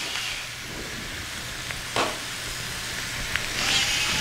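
Onions, butternut squash and carrots sizzling in a stainless steel pot, with one sharp click about halfway. The sizzle grows louder near the end.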